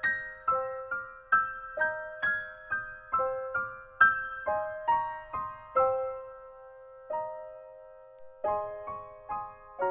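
Background piano music: a slow melody of single struck notes, about two a second, thinning out for a couple of seconds past the middle before picking up again.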